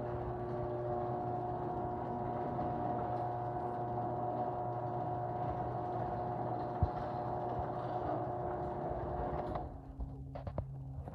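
Chamberlain garage door opener, its case lined with foam padding against vibration, running steadily with a low hum and a steady whine while it drives the door, then stopping about nine and a half seconds in, followed by a few light clicks.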